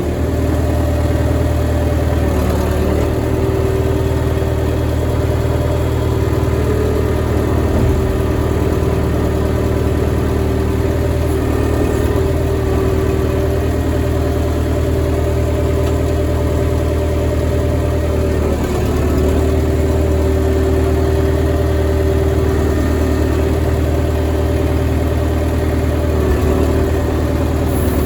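Old Case backhoe's engine running steadily as the machine is driven, with slight shifts in pitch about 3 seconds and 19 seconds in.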